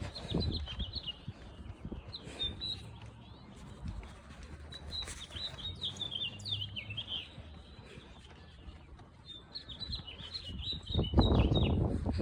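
Small songbirds chirping and twittering in several short runs, over low rustling. A louder rustling burst comes near the end.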